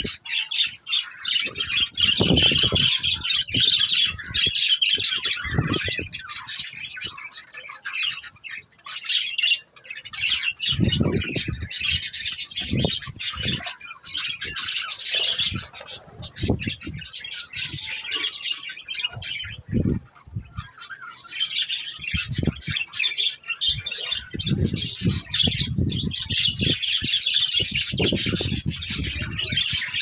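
A flock of budgerigars chattering continuously in a dense, high mix of warbles, chirps and squawks, with bursts of low rumble now and then.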